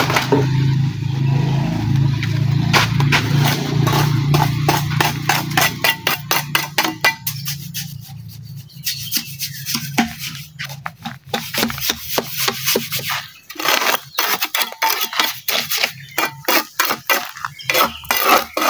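Steel trowel scraping and tapping wet concrete against the steel rings of a concrete culvert mould in quick, irregular strokes. A steady low mechanical hum runs underneath and stops about two-thirds of the way through.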